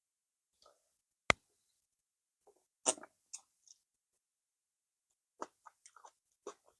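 Close-miked eating sounds: scattered wet mouth smacks and chewing of banku and okra stew, with one sharp click about a second in.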